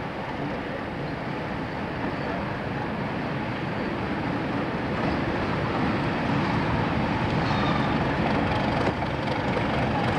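A pair of Class 31 diesel locomotives' English Electric engines running as the train draws slowly into the platform, getting steadily louder as the locomotive approaches.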